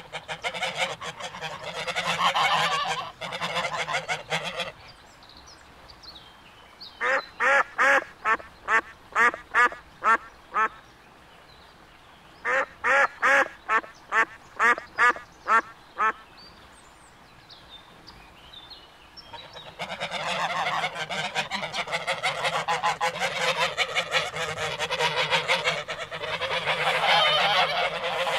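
Mallard ducks quacking. A dense flock chatter cuts off suddenly a few seconds in. Two runs of about ten loud, evenly spaced quacks follow, roughly three a second, and the flock chatter returns in the last third.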